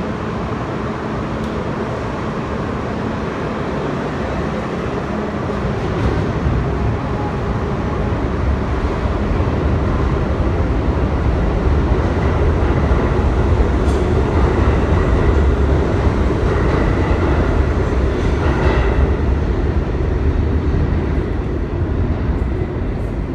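New York City subway train running along the platform, its rumble growing louder about six seconds in and easing off near the end, with a few sharp clicks from the wheels on the track.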